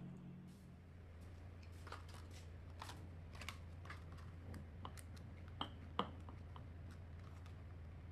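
Faint clicks and taps from small glass jars and paper liners being handled on a wooden table, over a low steady hum. The two sharpest knocks come close together about two-thirds of the way through.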